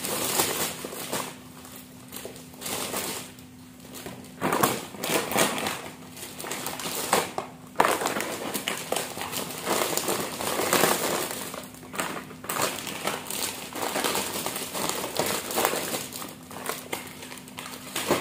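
Clear plastic party bags and snack packets crinkling and rustling in irregular bursts as snacks are packed into the bags by hand, over a faint steady hum.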